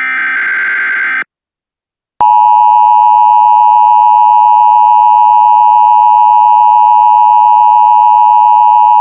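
The last of the Emergency Alert System header data bursts, a second-long buzzy digital screech. After a second of silence comes the EAS two-tone attention signal, a loud, steady, piercing alarm tone held for about seven seconds.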